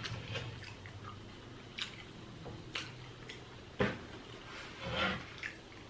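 Close-miked mouth sounds of someone chewing animal-style waffle fries: scattered wet smacks and clicks, the sharpest a little under four seconds in.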